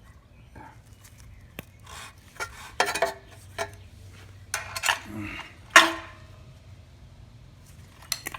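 Metal hand tools and starter parts clinking and clattering in a run of short, irregular knocks, the loudest about six seconds in, while work goes on at a lawnmower's recoil starter.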